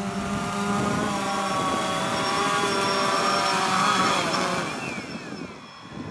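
DJI Phantom 2 Vision+ quadcopter's motors and propellers whining steadily as it descends to land. About four seconds in, the motors spin down with falling whines.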